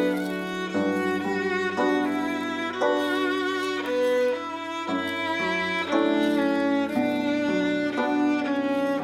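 Background music played on bowed strings, violin and cello, moving through held notes.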